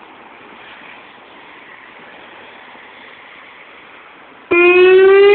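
Steady rushing background noise, then near the end an outdoor civil-defense tornado siren starts abruptly and winds up, its pitch rising steadily. This is the siren's weekly test sounding.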